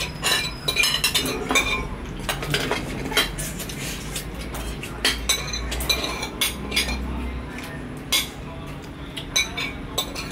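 Spoons and dishes clinking and knocking irregularly as people eat.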